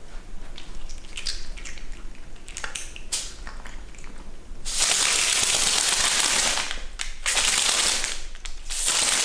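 A cat crunching dry kibble in small scattered clicks. About four and a half seconds in, a loud crackling rustle of sticky tape strips begins as the cat steps onto them and its paws stick and pull free, broken twice by short pauses.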